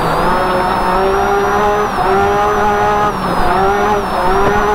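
UTV engine running hard while driving over desert dirt, heard from inside the cab; its pitch drops and climbs back about three times, with a thin high whine rising and falling along with it over steady road and chassis noise.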